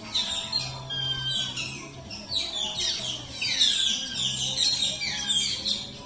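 Otters chirping: a rapid, overlapping stream of high-pitched squeaky calls, each gliding quickly downward in pitch.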